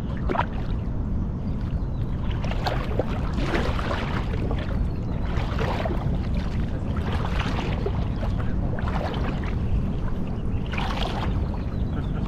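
Water splashing and sloshing in short surges every second or two, over a steady low rumble.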